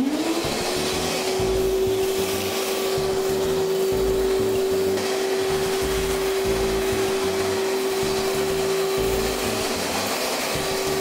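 Canister wet-and-dry workshop vacuum switched on, its motor spinning up with a rising whine over the first half-second, then running steadily with a hiss of suction as the hose nozzle picks up sawdust from the worktop.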